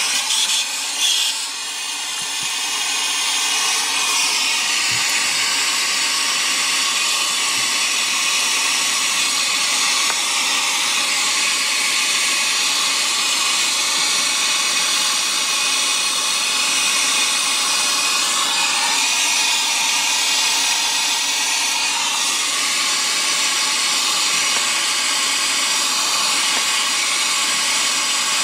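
Steady hiss of an air-acetylene brazing torch burning, while a freshly brazed copper line-set joint on the air handler is cooled with a wet rag.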